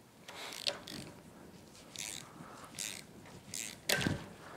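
Quiet, scattered clicks and scrapes of hand tools being handled as an Allen key is brought to the bottom bolt of a motorcycle fork leg, with one sharper metallic clack about four seconds in.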